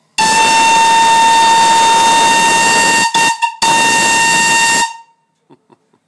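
Steam whistle on a steam boat's boiler blown in a long blast of about three seconds, cut briefly, then blown again for about a second. It gives one steady pitch over a loud hiss of steam.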